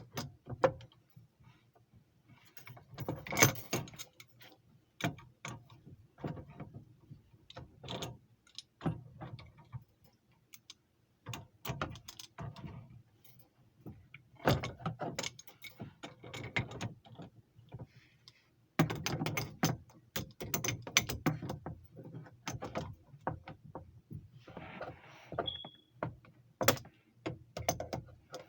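Hand tools and metal fittings clinking, clicking and knocking in irregular clusters with short pauses, as refrigerant line connections on an air handler are worked on.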